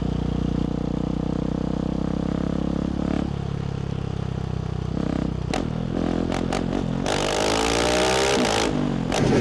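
Husqvarna 701 Supermoto's single-cylinder engine breathing through a LeoVince full exhaust system in a tunnel. It runs at a steady note for about five seconds, gives a few sharp cracks, then revs up with rising pitch in the second half.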